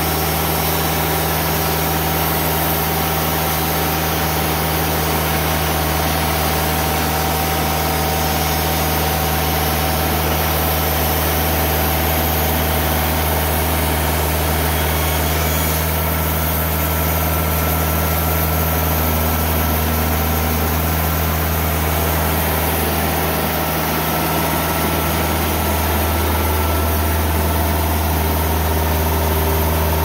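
The four-cylinder Kubota V1505 diesel of a TimberKing 2000 hydraulic sawmill running at a steady speed, with no breaks and only slight changes in its note.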